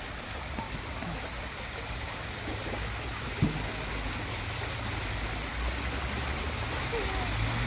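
Water jets of a splash fountain spurting up and falling back onto a metal floor grate, a steady spatter of water. A single sharp knock comes about three and a half seconds in.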